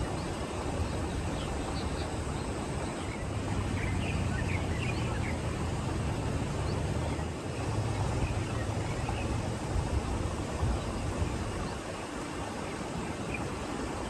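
Outdoor wind ambience: a steady rush with an uneven low rumble of wind on the microphone. A few faint, short bird chirps come a few seconds in.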